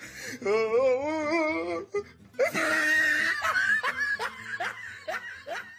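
A person laughing hard: a long wavering laugh, a squealing burst near the middle, then a run of short quick laughs.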